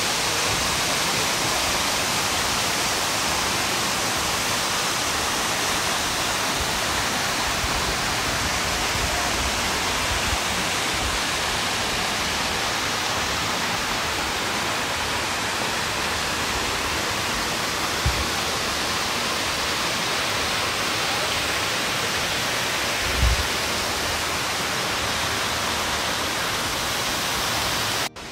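Steady rushing water of a waterfall or cascade, an even unbroken roar with a couple of soft low thumps; it cuts off abruptly at the very end.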